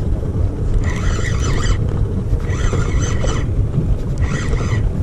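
Large spinning reel whirring in short bursts as its handle is cranked, about one burst every second and a half to two seconds, winding in a hooked fish in pump-and-reel fashion. A steady low rumble runs underneath.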